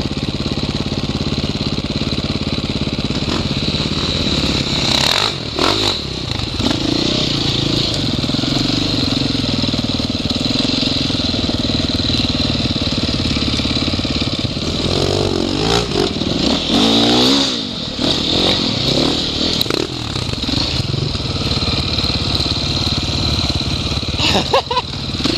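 KTM enduro motorcycle engine running close to the microphone on a forest trail, its pitch rising and falling as the throttle is worked, with a run of revs a little past the middle.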